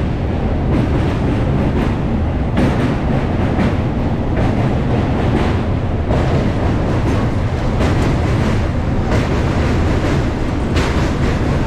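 Local electric train running over a steel truss bridge, heard from its open doorway: a loud, steady rumble with the wheels clattering over rail joints every second or so.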